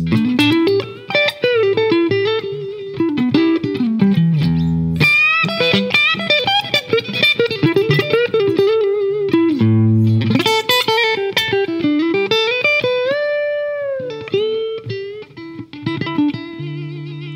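Fender Stratocaster electric guitar playing a quick single-note lead line through an engaged Fairfield Circuitry Accountant compressor pedal, evening out the notes. A note is bent up and held about two-thirds of the way in, and near the end the notes waver with vibrato.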